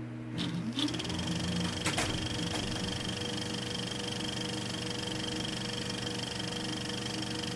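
Steady hum made of several constant low tones and a thin high whine, with a single sharp click about two seconds in.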